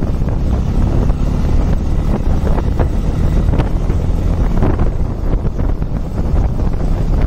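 Wind rushing over the microphone while riding a motorcycle at highway speed, a steady loud rumble with the bike's engine and road noise underneath.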